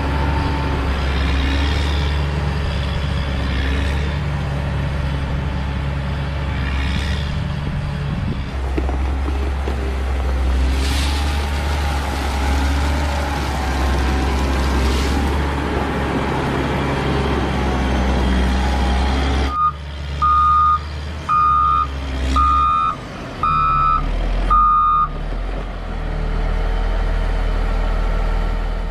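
Caterpillar 120 motor grader's diesel engine running steadily as the grader works gravel aggregate with its blade. About two-thirds in, its reversing alarm beeps about six times, roughly once a second, before the engine sound carries on.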